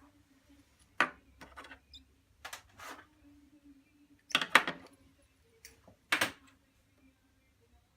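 Orthodontic pliers and steel wire being handled: a series of sharp metallic clicks and taps in separate bursts, the loudest cluster about four and a half seconds in.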